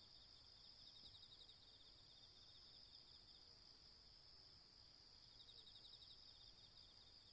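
Faint chorus of autumn crickets: a steady high ringing with rapid pulsed trills layered over it, dipping a little in the middle and picking up again near the end.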